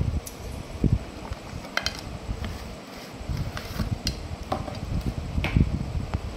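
Clear plastic blister packaging being handled and pulled open to free a toy: scattered crinkles and clicks of the plastic over low handling thumps.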